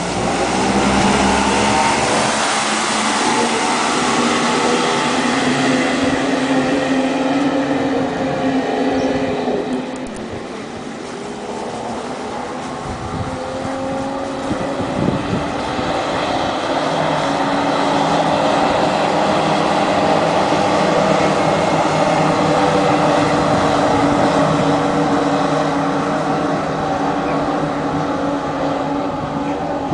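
Thundercat racing powerboats' outboard engines running hard at high revs as the boats race past, a steady, wavering engine note from several boats together. The sound eases about ten seconds in, then builds again a few seconds later.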